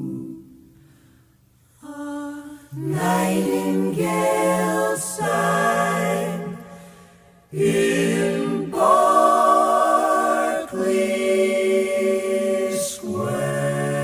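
Four-part close-harmony a cappella vocal group (soprano, alto, tenor, bass) singing the song's closing bars. A chord fades away at the start, the voices come back in about two seconds in, break off briefly about halfway, and then hold sustained jazz chords.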